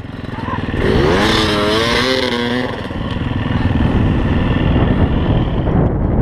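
Husaberg FE350 single-cylinder four-stroke dirt bike engine revving: about a second in its note climbs and wavers for a second or two, then it runs on at a steadier pitch.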